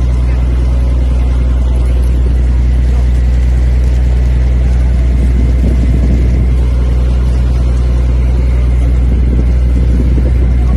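A fishing boat's engine running steadily with a deep, even hum. Fish splash and thrash in the net alongside, loudest about halfway through and again near the end.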